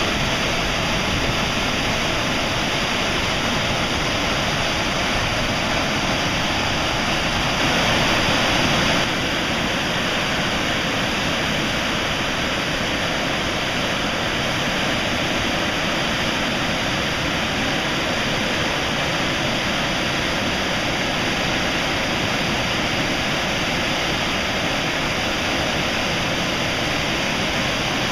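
Wai'ale Falls in heavy, muddy flow: the steady rush of the waterfall plunging into churning rapids, briefly a little louder about eight seconds in.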